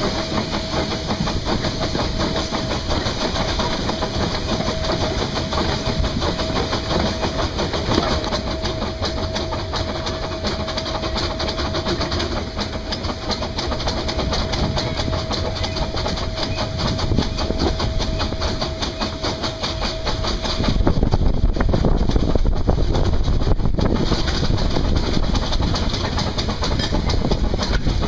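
Narrow-gauge steam train heard from on board while running: wheels clattering over the rails, with the locomotive's working noise. A steady high tone runs under it and stops about 20 seconds in. After that the low rumble grows louder.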